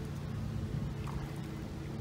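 An engine running steadily, a low even hum, with low wind rumble on the microphone.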